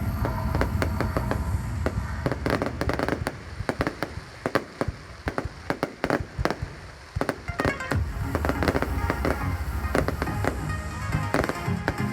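New Year fireworks going off in rapid strings of bangs and crackles. The bangs thin out in the middle and come thick again about eight seconds in.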